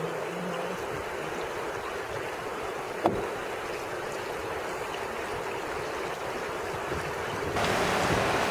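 Steady rush of river water flowing over rocks, with one sharp click about three seconds in; the rush becomes louder near the end.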